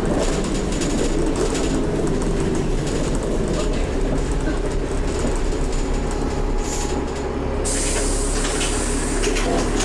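Dennis Trident bus under way, its diesel engine running steadily with rattling from the bodywork. Near the end, a burst of hissing.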